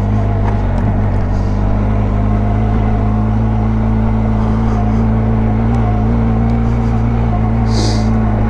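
Benelli TRK 502X motorcycle's parallel-twin engine running at steady revs while riding slowly. A brief hiss sounds near the end.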